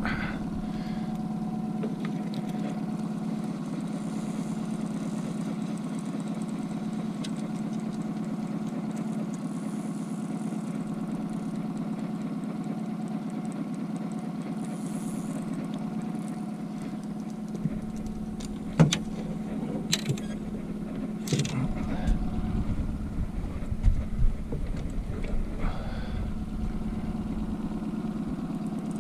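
Boat's outboard motor running steadily at trolling speed, an even hum. From about two-thirds of the way in, a low rumble joins it, along with a handful of sharp knocks.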